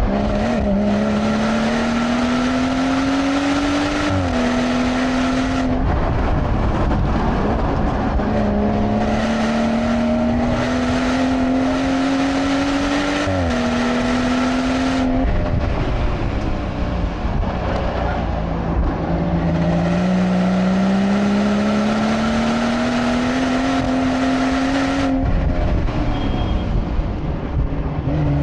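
BMW turbocharged straight-six heard from inside the cabin under hard acceleration. The engine note climbs, drops sharply at an upshift, then falls away as the car lifts off and brakes for corners, three times over.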